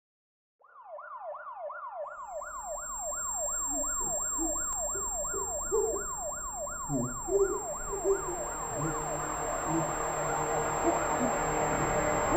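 Emergency-vehicle siren in a fast yelp, its pitch sweeping up and falling about three times a second, starting about half a second in. A wash of noise builds up beneath it toward the end.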